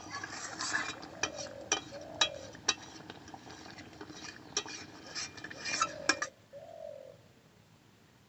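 Metal utensil clinking and scraping against a cooking pot: a run of sharp clinks for about six seconds that stops abruptly, with a bird cooing in the background.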